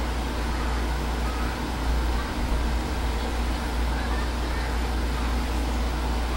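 Steady machine hum with an even hiss on top, as from a running fan or blower motor, holding at one level throughout.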